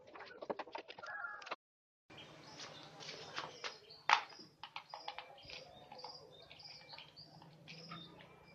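Small bird chirping in a quick repeated series of short calls, a few a second, over a faint low hum. Scattered taps and clicks come early on, with one sharp click about four seconds in, and the sound drops out completely for half a second near the start.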